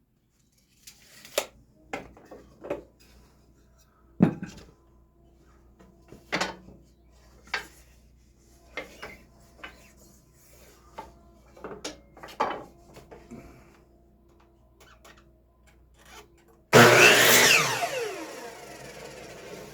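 Wooden fence-picket boards knocked and shifted on a workbench, a run of separate wooden knocks and clicks. Near the end a power saw starts with a loud burst, and its motor's pitch falls as it winds down.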